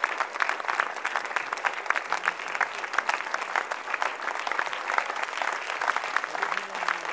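Audience applause: many people clapping in a dense, steady patter that holds its level throughout.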